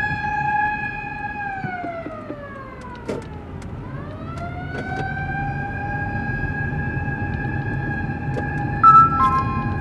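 Fire command vehicle's electronic siren wailing: a held tone slides down about an octave, climbs back up and holds again. Near the end a short, louder electronic tone cuts in, stepping between two pitches, over a low road rumble.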